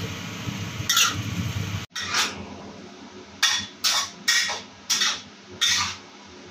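Spatula scraping a wok while stir-frying lettuce, with a sizzle under the first two seconds. After that come about six separate scrapes of the spatula against the wok.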